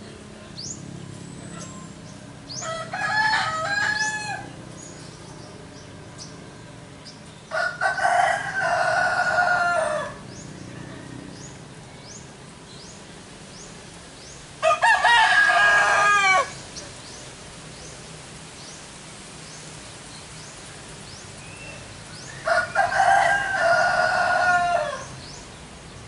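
A rooster crowing four times, each crow about two seconds long and falling in pitch at the end. Between the crows come many faint, short, high chirps of small birds.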